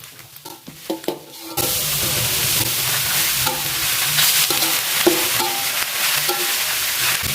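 Food frying in a hot pan for fried noodles with pigeon: a few quiet clicks, then a steady loud sizzle starts suddenly about a second and a half in, with a utensil stirring and clicking against the pan through it.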